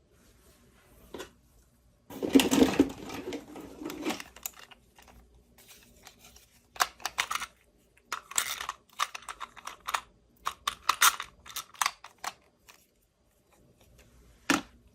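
Hands handling toy packaging and small toy pieces: a stretch of rustling and crinkling about two seconds in, then a series of short clicks and taps, and one sharp click near the end.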